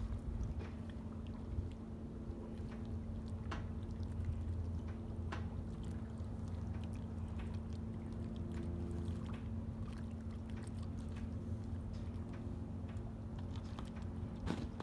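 Steady low drone of Great Lakes freighters' diesel engines and machinery carried across the harbor water, with scattered faint clicks.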